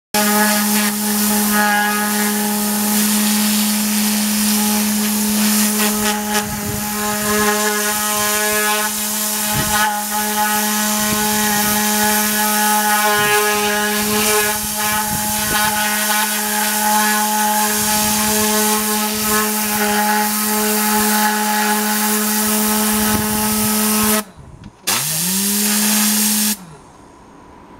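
Pneumatic tornado-style cleaning gun blasting compressed air: a loud, steady hiss with a steady buzzing hum from the whirling nozzle tube. Near the end the air cuts off, returns for a short burst whose hum rises in pitch as it spins up, then stops.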